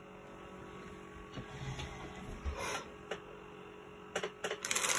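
Quiet rubbing and a few small knocks, then, near the end, loud rustling and crinkling of small plastic bags of diamond painting drills being handled.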